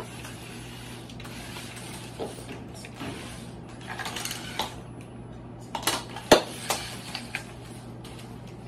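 Competition robot on mecanum wheels driving around the field, its drive mechanism whirring and the metal frame rattling, with a cluster of sharp clacks and knocks about six seconds in, one much louder than the rest.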